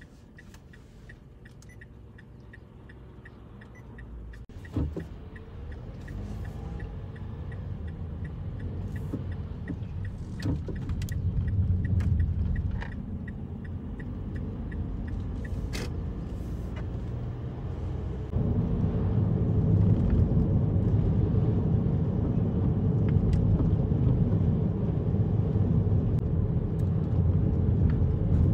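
Inside a moving car: quiet at first, then a single knock, then engine and tyre rumble that builds steadily as the car pulls away and gathers speed, stepping up louder about two-thirds of the way through.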